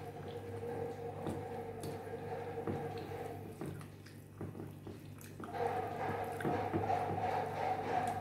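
Fingers mixing rice and curry on a plate: soft, wet squishing and small clicks. Under them is a steady two-note hum of unknown source, which stops after about three and a half seconds and returns louder about two seconds later.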